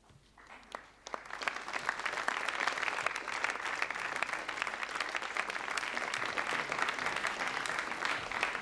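Audience applauding: a few scattered claps at first, then steady applause from about a second in.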